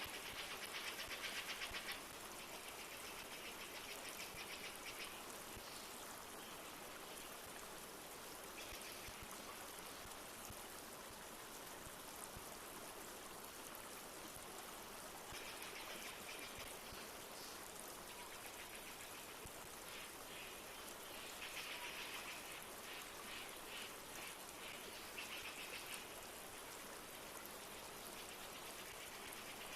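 Steady rush of a flowing river with light rain. Several times a high, rapid bird trill comes in over it, each lasting one to three seconds.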